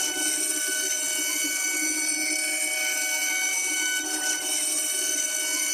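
CNC router spindle running with a steady high-pitched whine.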